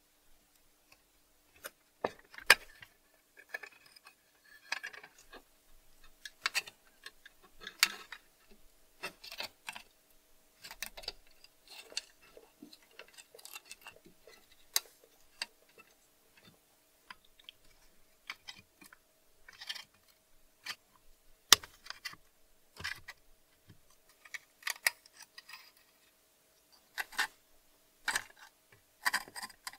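Small metal parts of a rusty Louxor Supra bicycle lantern (c. 1905) clicking, ticking and scraping irregularly as they are pried with a screwdriver and worked apart by hand, over a faint steady hum.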